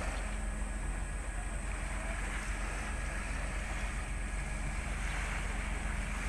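Steady low drone of a ro-ro ferry's engines while it berths, mixed with wind and water noise. There are no sudden knocks or changes.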